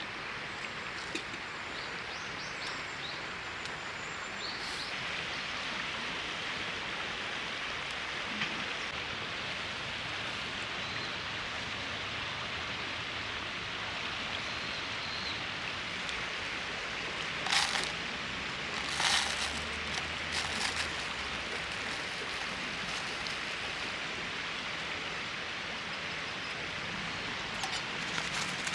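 Steady rushing of a river flowing over its stony bed. A few sharp clicks stand out about two-thirds of the way through.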